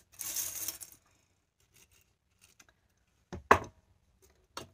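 Thin jingle shells clinking and rustling against each other as a hand stirs through a pile of them on a tabletop for about a second. Then a few faint clicks, and a single sharp knock about three and a half seconds in.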